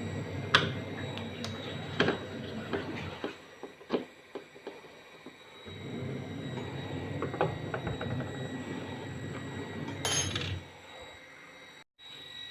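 Scattered clicks and knocks of hands working on a front-loading washing machine's plastic door parts, over a low steady hum that stops for a few seconds midway.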